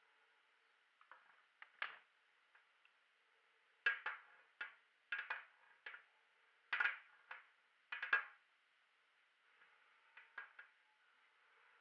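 Studs of soccer cleats clacking against a clear hard floor panel: irregular sharp clicks, several in quick doubles and triples, as the feet step and tap around the apple without crushing it yet.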